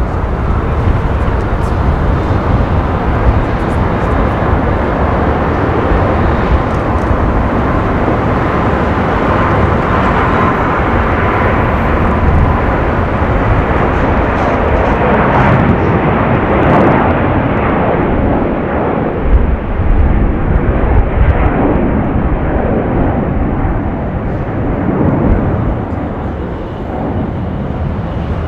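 Airbus A350 jetliner's two Rolls-Royce Trent XWB turbofans at takeoff thrust: a steady, loud jet roar through the takeoff roll, lift-off and initial climb.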